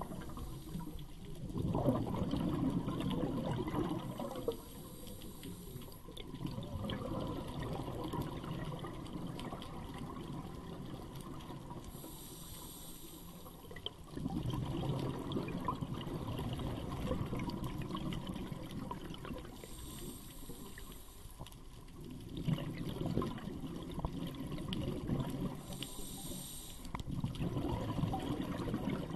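Scuba divers breathing through regulators underwater: short hissing inhalations about every six to eight seconds, between long runs of exhaled bubbles rushing up.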